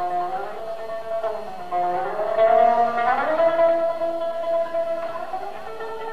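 Live punk band music: electric guitar holding long notes that slide up and down in pitch.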